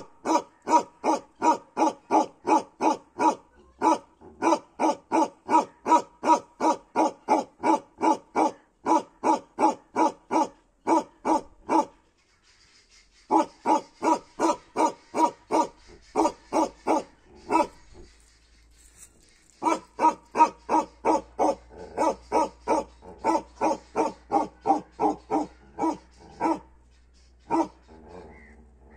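Bakerwal livestock guardian dog barking in long, even runs of about two to three deep barks a second, pausing briefly a few times.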